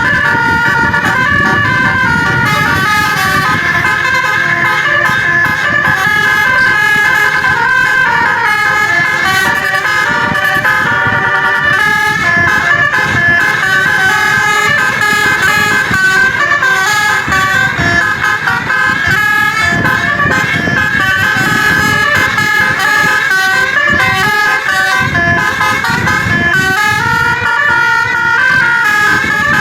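Indonesian bus's 'basuri' telolet musical air horn playing a continuous melody, several tones stepping up and down in pitch, over a low rumble.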